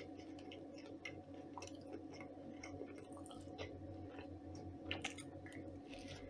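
Faint chewing: a person eating a bite of an open sandwich of home-cured salo on bread with mustard and green onion, with small soft clicks of the mouth and a low steady hum underneath.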